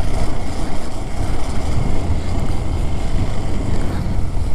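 Wind buffeting the microphone of a moving motorcycle: a loud, uneven low rumble with rushing noise above it.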